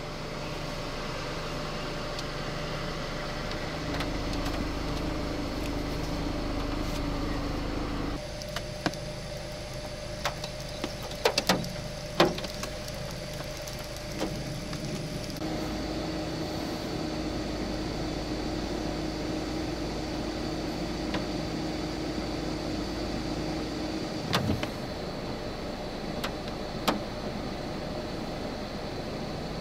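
Steady hum of a vehicle idling, with a few sharp clicks around the middle and twice near the end.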